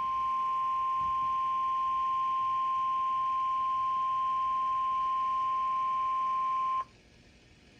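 NOAA Weather Radio's 1050 Hz warning alarm tone: one steady, unbroken tone that cuts off abruptly about a second before the end, leaving faint radio hiss.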